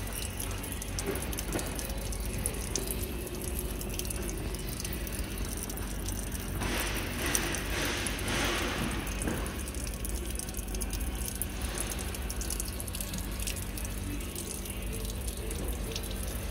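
Water running from an outdoor tap and splashing onto a steel drain grate, a steady rush that grows louder for about three seconds midway.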